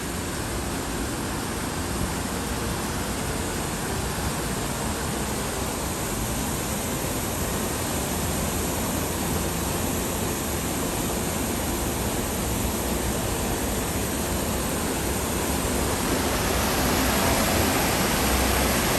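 Steady rush of flowing water, a little louder near the end.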